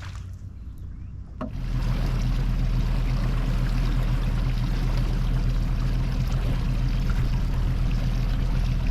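A boat's outboard motor running steadily under way, a low droning hum with wind and water rushing past. It comes in suddenly about a second and a half in, after a quieter moment with a few clicks.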